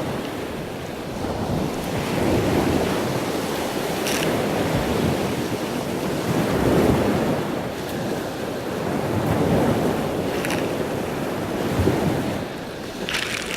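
Sea water washing and surging, with wind buffeting the camera microphone. The level swells and eases every few seconds, with a few short crackles.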